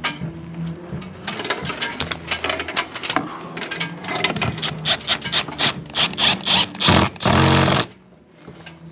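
Hand work on cable hardware: a run of rapid mechanical clicks and ratcheting, then a loud whirring burst of under a second about seven seconds in.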